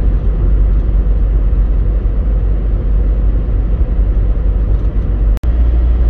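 Converted Ford Transit van driving at road speed, heard from inside the cab: a steady low rumble of engine and road noise. It cuts out for an instant about five seconds in.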